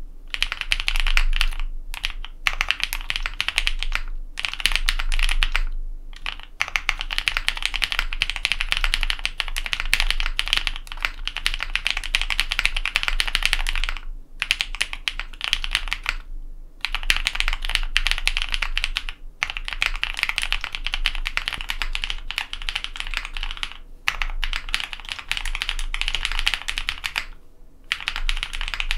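Steady fast typing on a custom mechanical keyboard: a Matrix ME SE aluminium-plate board with lubed linear Cherry MX Black switches on Kailh Red stems and GMK keycaps. Keystrokes come in dense runs broken by brief pauses every few seconds.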